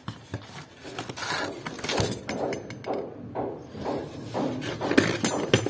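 Cardboard boxes and flaps being handled and rustled, with irregular knocks and clicks as packed dinnerware and steel spoons are moved about; the sharpest clinks come about five seconds in.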